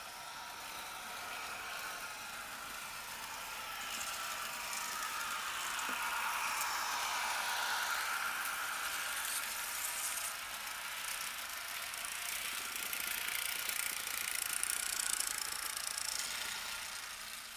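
Märklin H0 model train, a V200 diesel locomotive pulling coaches, running on the layout's track: a steady rattling whir of wheels on the rails and the electric motor. It grows louder over the first several seconds as the train comes close and stays loud until near the end.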